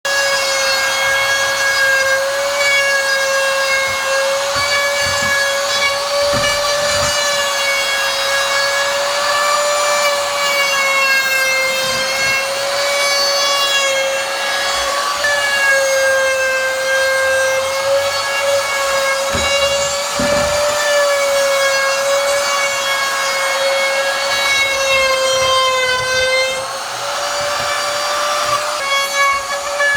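Bosch wood router running at high speed: a steady, high motor whine over cutting noise as it works a wood edge. The pitch wavers under load and sags briefly near the end before picking back up.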